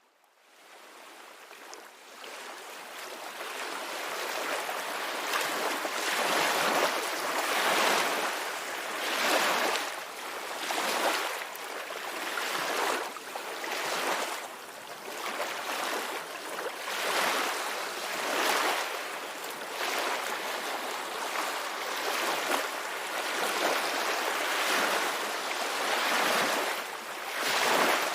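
Ocean surf: waves washing in a continuous hiss that swells and eases every couple of seconds. It fades in over the first few seconds.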